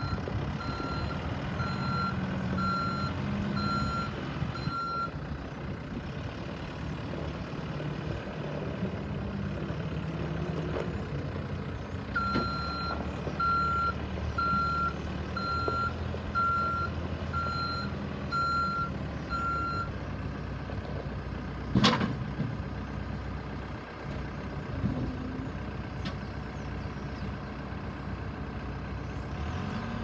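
Komatsu WB150 backhoe loader's diesel engine running as the machine manoeuvres. Its reversing beeper sounds in two runs of steady beeps, a little over one a second: for the first five seconds, and again from about 12 to 20 seconds in. A single sharp knock comes about 22 seconds in.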